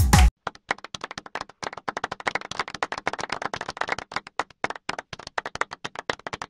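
Electronic music cuts off about a third of a second in. It gives way to applause from a small group: many hands clapping quickly and unevenly, thinning out toward the end.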